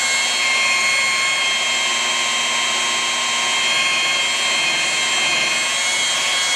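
Makita rotary polisher running at a steady speed with a high whine, its wool pad buffing sanded clear-coat paint back to a shine.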